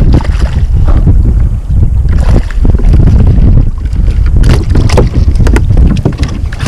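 Heavy wind buffeting on the microphone, with scattered splashes and knocks as a hooked Spanish mackerel thrashes at the surface and is swung aboard a plastic kayak.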